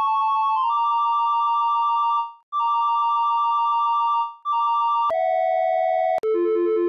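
Synthesizer telephone-ring preset ('telephone 2' on AudioKit Synth One) played from the keyboard: a two-tone electronic phone ring in rings of about two seconds with short breaks. About five seconds in there is a click, and the ring shifts to lower pitches, changing a few times near the end.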